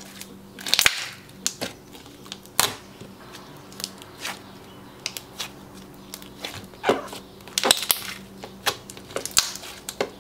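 Clear-based gummy slime being pressed, squeezed and stretched by hand, giving irregular sticky clicks and pops, a few every second.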